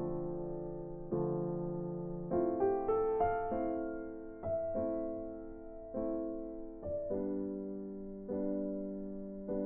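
Slow, gentle piano music: sustained chords and single notes struck about once a second and left to ring out.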